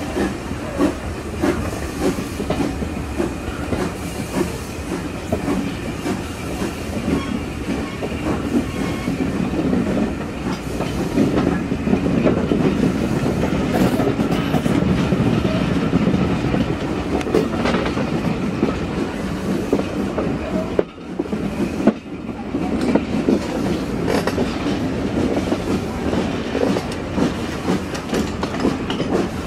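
LNER K1 class 2-6-0 steam locomotive 62005 working hard up a 1 in 50 gradient, heard from a carriage window behind it. Its exhaust beats sound over the clickety-clack of the carriage wheels on the rail joints. The sound briefly drops away about two-thirds of the way through.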